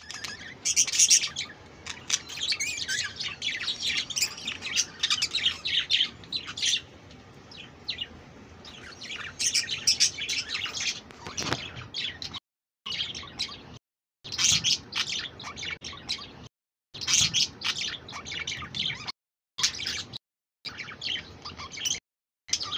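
Budgerigars chirping and chattering, a rapid run of high warbling chirps and squeaks. In the second half the chatter is broken by several short gaps of silence.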